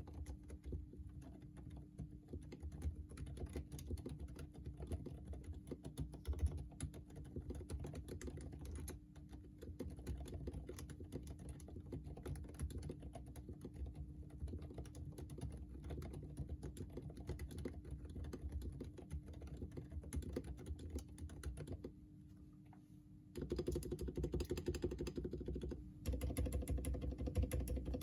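Typing on a Quefrency Rev. 2 keyboard with lubed Kailh Box Silent Pink switches and lubed Durock V2 stabilizers: a dense, continuous run of keystrokes. It pauses briefly about two-thirds of the way through, then resumes louder.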